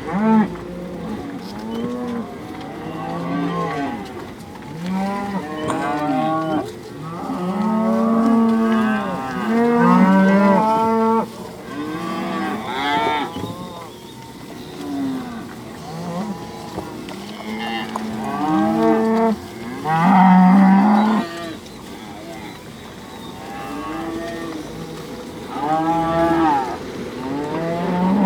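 A herd of cattle on a cattle drive, many animals mooing and bawling over one another with hardly a break, some calls much louder than the rest.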